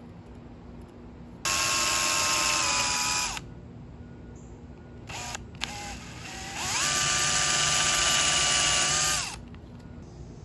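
Power drill boring two small pilot holes into a mahogany frame rail: two runs of a steady motor whine, about two and three seconds long, with a couple of brief trigger blips between them. The second run's pitch rises as the drill spins up.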